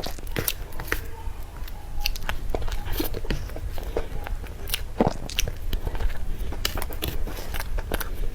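Close-miked mouth sounds of a person eating cream cake: biting and chewing, with many short wet clicks and smacks over a steady low hum.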